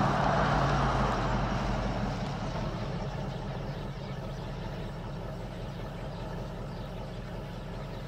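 Old panel truck rolling up on a dirt road and coming to a stop, the rush of tyres on gravel loudest at first and fading, then its engine idling steadily.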